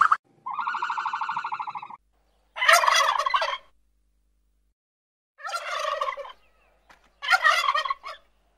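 An animal calling four times: a rapid pulsing call of about a second and a half, then three shorter rough, warbling calls a couple of seconds apart.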